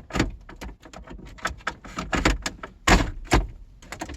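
A quick run of sharp clicks and knocks from the hard parts of a 1999 Chevrolet Suburban's HVAC control panel being handled and worked into place in the dash, the loudest pair about three seconds in.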